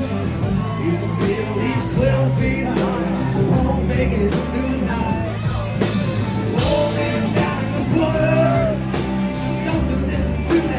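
A rock band playing live, with singing over guitar.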